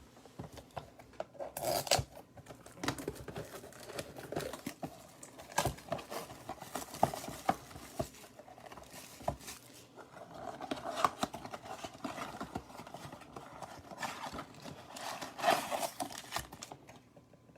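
Sealed box of baseball cards being unwrapped and opened by hand: plastic wrap crinkling and tearing, with scattered clicks and snaps and a few louder crackling bursts.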